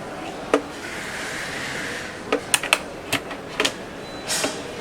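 Irregular sharp clicks and knocks of hard parts being handled while a smart lock is fitted to a door: one about half a second in, then a quick cluster in the second half.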